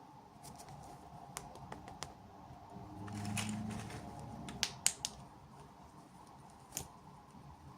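Small plastic toy pieces and packaging being handled: scattered light clicks and taps, with a short rustle about three seconds in and a few sharper clicks near the middle.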